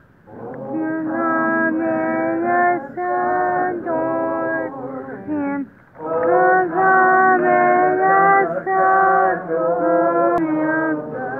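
Voices singing a Christmas carol in slow, long-held notes, with short breaks between phrases.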